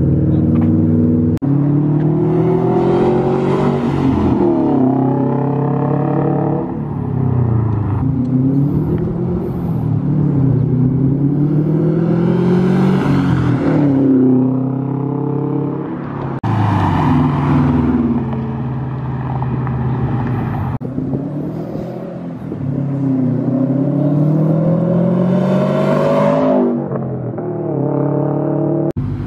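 Subaru WRX STI's turbocharged flat-four engine through an AWE Track Edition exhaust, accelerating hard through the gears in several pulls. The exhaust note climbs in pitch and drops at each shift, with a few abrupt breaks between clips.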